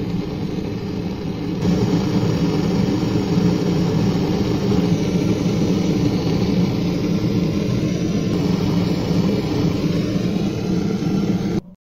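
Jeweller's torch flame running with a steady roar while it heats small folded brass pieces to a red glow. It cuts off suddenly near the end.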